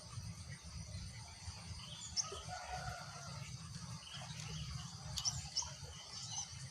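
Steady high-pitched insect chorus, crickets, with a few short, faint bird chirps about two seconds in and again near the end, over a low background rumble.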